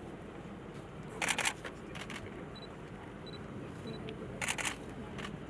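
Three short clusters of sharp clicks, about a second in, at two seconds and near four and a half seconds, over a steady low background murmur.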